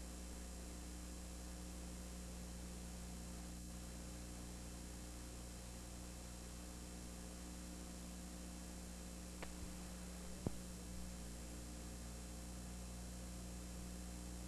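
Steady electrical hum and hiss with no game sound audible, with a couple of faint clicks about nine and ten seconds in.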